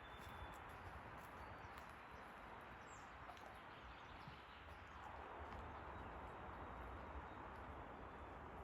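Faint forest ambience: a steady hiss with a brief high bird chirp about three seconds in.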